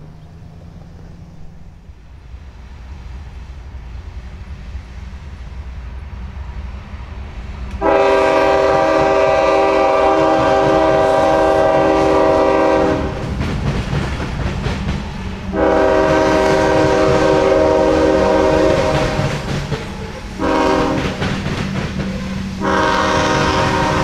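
Diesel freight locomotive approaching with a rumble that builds, then sounding its air horn, a chord of several tones, in the grade-crossing pattern: long, long, short, then a long blast that carries on.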